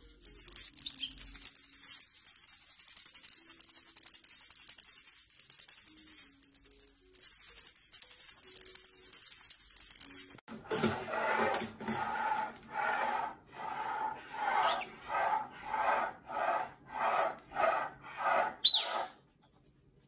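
A white-bellied caique shaking a small plastic toy maraca in its beak: a steady, busy rattle that stops suddenly about ten seconds in. Then a parrot's short calls, repeated about twice a second, with one sharp high squeak near the end.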